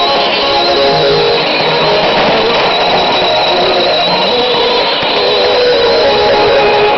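Music from a shortwave AM broadcast on 6160 kHz, playing through a Sony ICF-2001 receiver's speaker, under a steady hiss of static.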